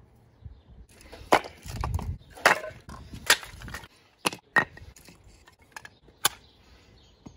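Split pine kindling sticks being picked up and set down on a stone slab, a series of sharp wooden clacks and knocks. The louder ones come about a second in, at two and a half seconds, and again past six seconds.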